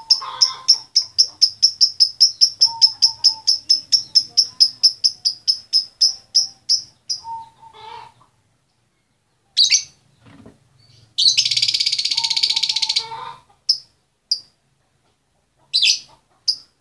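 Female lovebird calling for the male: a fast run of sharp high chirps, about five a second, that slows and fades out about seven seconds in. After a pause come single chirps, a buzzing trill lasting about two seconds, and a few more chirps near the end.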